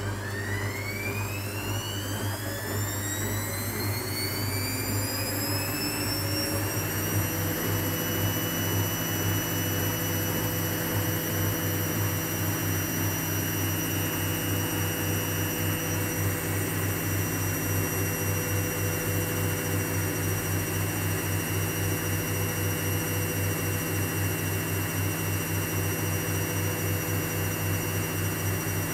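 Hotpoint WMA 30 washing machine spinning: the motor's whine rises in pitch over the first several seconds as the drum speeds up, then holds steady at spin speed over a constant low hum.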